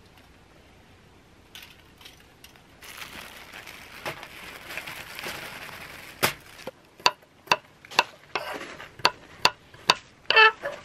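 Cookware and utensils clinking: a rustling hiss, then a run of sharp taps about two a second, ending in a ringing clink near the end.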